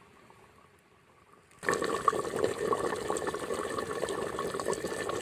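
Pork curry boiling in a clay pot over a wood fire: a dense, steady bubbling with small pops and spits that starts suddenly about one and a half seconds in, after a faint stretch of quiet.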